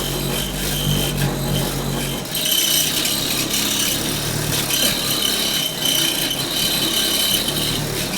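Heavy bass from eight Sundown SA12 car subwoofers shaking a room, making loose fittings buzz and rattle, which a listener puts down to the light fixtures. Deep low tones sound for about two seconds; after that the bass drops away and the rattle carries on louder and harsher.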